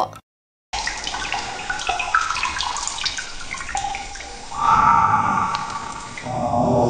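AI-generated (TangoFlux) cave sound effect starting after a brief silence: sharp, echoing water drips. About four and a half seconds in, a louder drawn-out eerie growling, scraping sound joins, and it swells again near the end.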